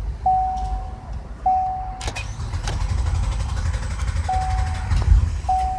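Chevrolet Impala's starter cranking the engine over by itself for about three seconds, starting about two seconds in. This is the fault the owner sees only after getting gas and suspects is the fuel pump. A dashboard warning chime repeats throughout.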